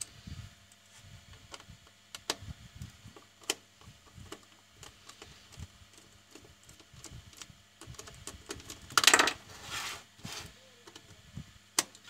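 Small screwdriver working screws out of a plastic WiFi modem case: scattered light clicks and taps of metal on plastic, with a louder scrape about nine seconds in.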